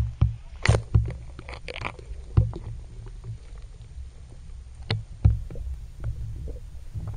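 Water sloshing and knocking against a camera held at and just under the water surface: a muffled low rumble with sharp knocks, several splashy bursts in the first two seconds and two more knocks about five seconds in.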